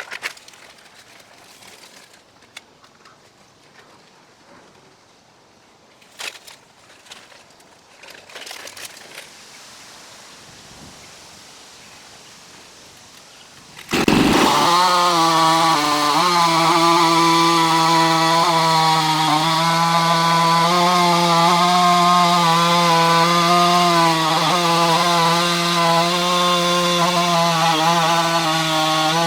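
Stihl MS660 two-stroke chainsaw on a Norwood PM14 chainsaw mill running at full throttle with a steady pitch, as when cutting through a log. It starts abruptly about halfway in and is preceded only by faint clicks and knocks.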